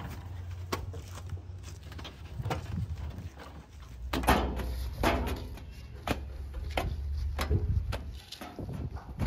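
Scattered knocks and clunks of hand work on parked farm tractors, irregular and of differing strength, over a low steady hum.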